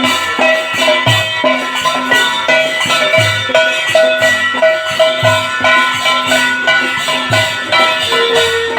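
Background music: a melodic instrumental with a steady beat, a low drum thump about once a second.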